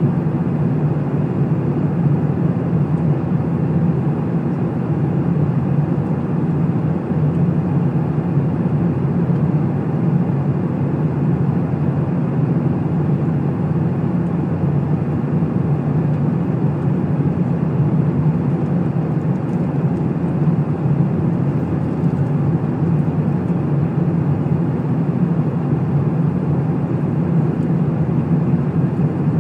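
Airliner cabin noise: a steady low rumble of jet engines and rushing air, heard from inside the cabin.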